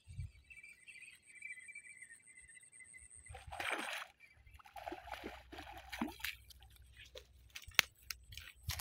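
A hooked fish thrashing and splashing at the water's surface in two bouts, about three and a half and five seconds in, then a few sharp clicks near the end as it is lifted out.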